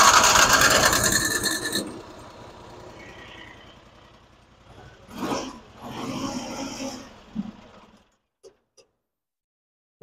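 The loader's engine being cranked by its starter without catching: a loud grinding burst that fades out over a few seconds, then two shorter, quieter attempts about five and six seconds in.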